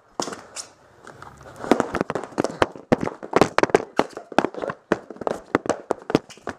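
Foam pool noodles smacking against each other and against the players in a rapid flurry of sharp slaps, several a second, starting about a second and a half in.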